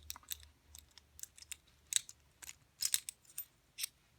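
Key being inserted and turned in a Squire 440 four-lever padlock: about a dozen sharp, irregular clicks, the loudest about two and three seconds in, as the key works the levers and the lock opens.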